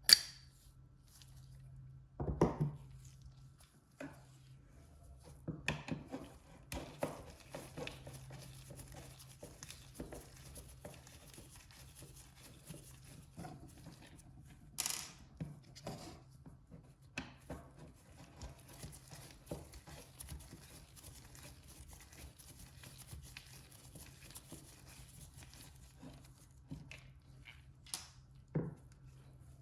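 Hand tools and small metal clipper parts handled on a workbench: scattered clicks and knocks, the sharpest at the very start and a heavier knock about two seconds in. A steady low hum runs underneath, and a faint high hiss comes and goes in two long stretches.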